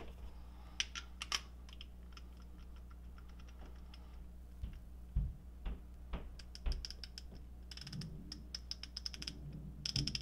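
A hand ratchet's pawl clicking in fast runs as the socket on it is turned by hand, the loudest runs near the end, with a few separate knocks and taps of metal tools being handled in between.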